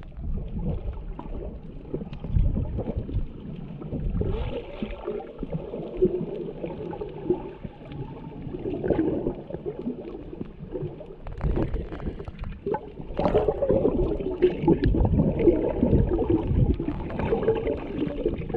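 Muffled underwater sloshing and bubbling heard through a GoPro's waterproof housing as it moves through the sea with a snorkeler. The sound grows louder about two-thirds of the way through.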